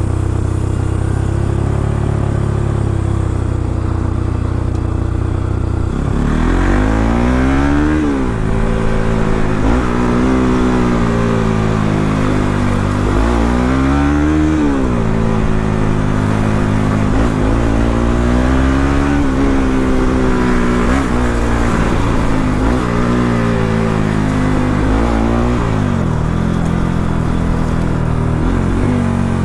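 Bajaj Pulsar NS200's single-cylinder engine through its stock exhaust, running steadily at first, then from about six seconds in revved up and eased off again and again, its pitch rising and falling as the motorcycle accelerates and backs off.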